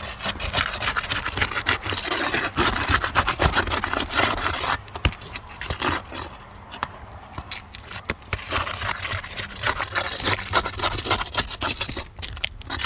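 Asphalt roof shingle being pried and pulled up by hand: irregular scraping and rubbing with many small clicks as the tar sealant strip is broken loose. This is a repairability test of an old, brittle shingle.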